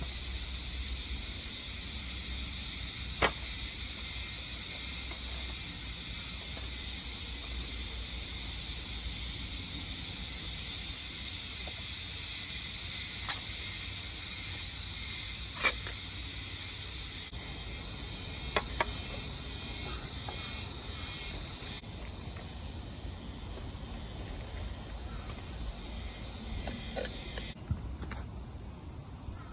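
Steady high-pitched chorus of insects, likely cicadas in summer woodland, with a few sharp clicks or knocks now and then.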